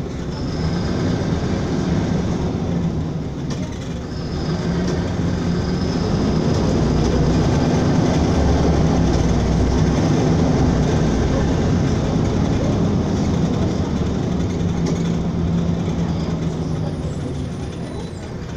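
Inside a LiAZ-5292.22 low-floor city bus on the move: a steady low diesel engine drone with road and body rattle noise. It grows louder a few seconds in, holds through the middle and eases off near the end.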